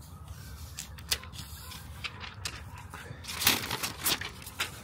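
Plastic screen-protector packaging being handled: a sharp click about a second in, then a cluster of crinkling, rustling clicks from the clear plastic alignment tray and protective film about three and a half seconds in.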